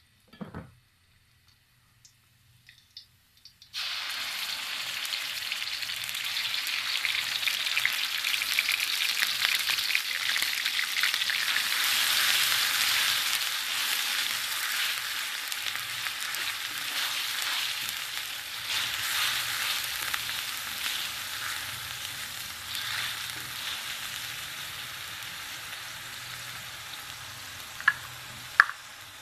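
Crushed garlic sizzling in hot oil in a wok while it is stirred with a spatula. The sizzle starts abruptly about four seconds in and slowly dies down, with a few sharp clicks near the end.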